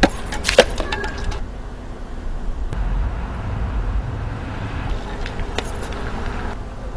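Steady low rumble of street traffic, with a few sharp knocks and scuffs in the first second.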